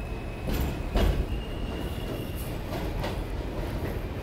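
R160B subway train pulling out and moving away along elevated track: a steady rumble, broken by a few sharp knocks as the wheels cross rail joints, and a thin high whine for about a second midway.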